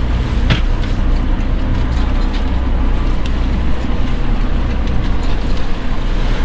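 Steady drone of a fishing boat's engine and hydraulic crab-pot hauler as a pot line is hauled in, with wind and water rushing past the hull. A short knock about half a second in.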